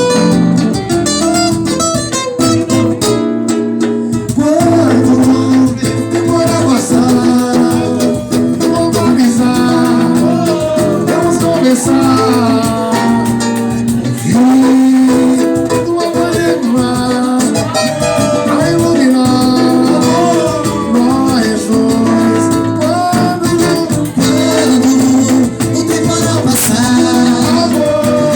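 Acoustic guitar music, strummed chords with a melodic lead line played over them, from a small Brazilian bar-music group.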